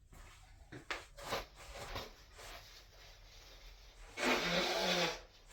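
A person with a head cold blowing her nose once, a rough, noisy blast of about a second, about four seconds in. It is preceded by a few faint small knocks.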